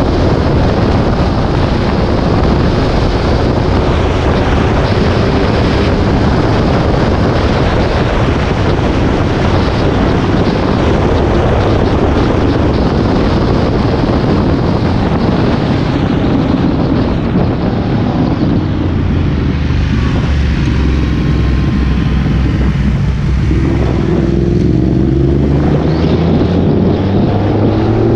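Heavy wind buffeting on the microphone of a moving vehicle, over a running engine. About two-thirds of the way in the wind eases and the engine note comes through, rising in pitch twice near the end as it accelerates.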